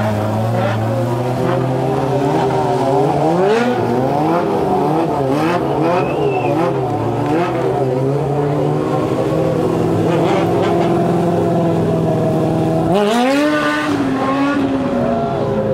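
Stunt motorcycle engine running at high revs, its pitch swinging up and down repeatedly as the throttle is worked, with a sudden drop and climb back in revs late on.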